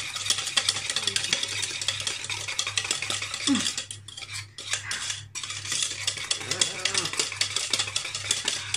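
Wire balloon whisk beating cupcake batter by hand in a stainless steel saucepan: a fast, continuous clatter of the wires scraping and tapping against the metal pan, with a couple of short breaks about halfway through.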